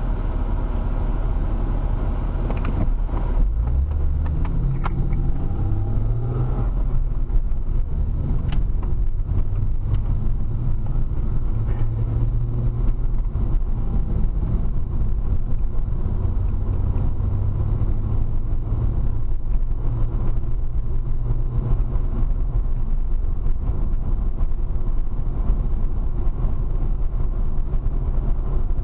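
Car engine and road noise heard from inside the cabin as the car pulls away from a standstill: the engine pitch rises from about three seconds in, then settles into a steady low driving drone with tyre rumble as the car picks up speed.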